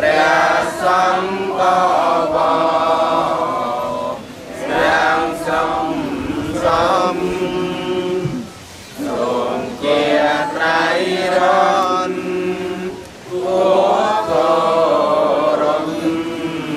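Buddhist monks and lay devotees chanting together in unison. The chant runs in long, held phrases, broken by short pauses for breath about four, eight and thirteen seconds in.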